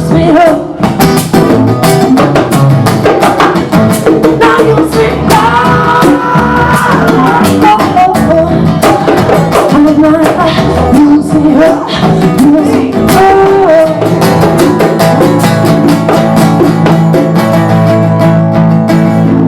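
Acoustic jam-band music: a strummed acoustic guitar and rapid hand-drum strokes from bongos carry a vocal melody line. The music keeps up a loud, busy rhythm.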